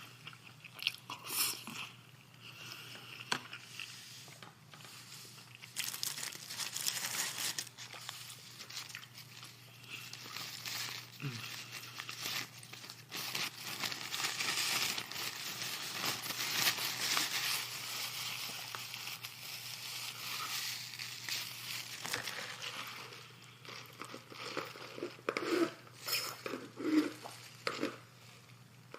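Close-up eating sounds: food wrappers and packaging crinkling and rustling, with irregular crunching, clicks and chewing from a fried-chicken meal. The rustling is densest through the middle, over a faint steady low hum.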